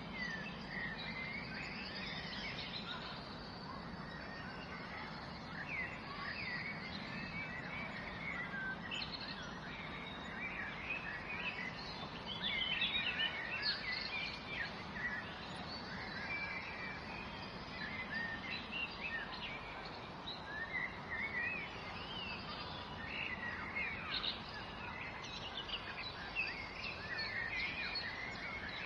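Several songbirds chirping and trilling over one another, with the chirping busiest about halfway through and again near the end, over a steady low background hum.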